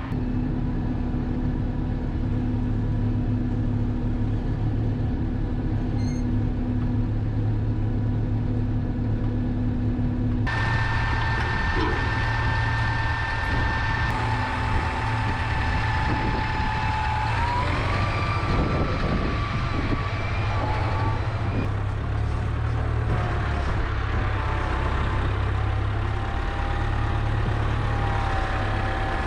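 Farm tractor's diesel engine running steadily. About ten seconds in, a high whine joins it, and it steps up in pitch a few seconds later.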